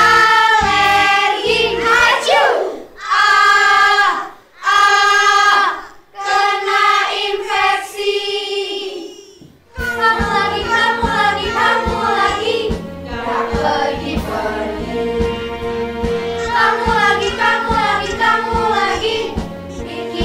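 A children's song with music: several held sung phrases with short breaks between them. About ten seconds in, a steady beat comes in under the singing.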